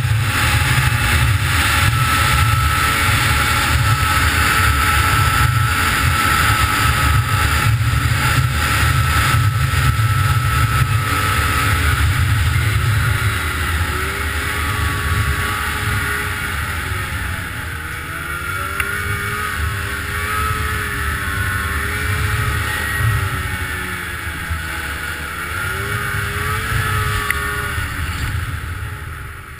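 Snowmobile engine running at a steady, high pitch for the first half, then rising and falling in pitch as the throttle is eased on and off. The sound gets quieter near the end.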